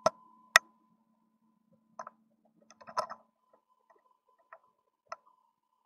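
Scattered sharp clicks and taps: two loud ones in the first second, then softer ones at irregular gaps, with a faint low hum that stops about three seconds in.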